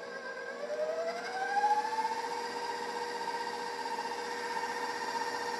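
Electric stand mixer motor speeding up with a rising whine over about two seconds, then running steadily at high speed while beating a marshmallow filling.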